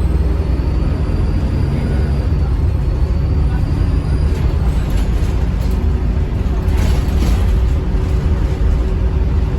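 Bus diesel engine running under way with a steady low rumble, and a thin high turbo whistle over roughly the first four seconds.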